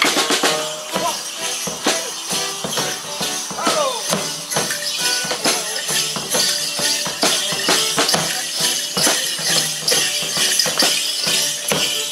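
Morris side's band playing a lively folk tune on drums, with the dancers' leg bells jingling and their sticks clacking in time. A short falling shout or whoop about four seconds in.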